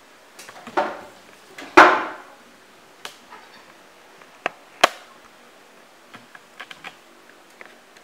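Knocks, bumps and clicks from a baby monkey climbing on a refrigerator and pulling its door open. Two louder thuds come about one and two seconds in, two sharp clicks near the middle, and lighter ticks after.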